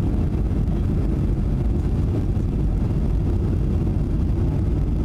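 Steady low roar inside the cabin of a Boeing 737-700 on final approach, with the gear down and the flaps fully extended: the engines and the rushing air over the wing and gear.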